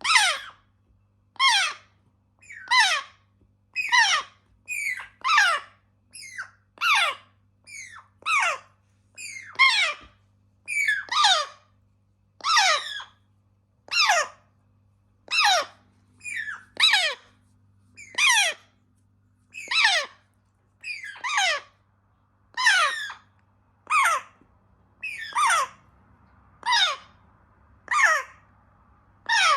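African grey parrot chicks giving repeated food-begging calls, a short squawk that falls in pitch about once a second, with now and then two calls close together.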